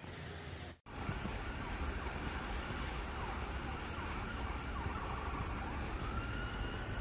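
Emergency vehicle siren wailing, rising slowly in pitch and holding, over a steady low rumble of town traffic. The sound cuts out briefly just under a second in.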